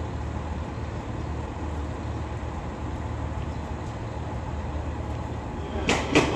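EF210 electric locomotive standing at a platform, giving off a steady low hum. Two sharp knocks come near the end.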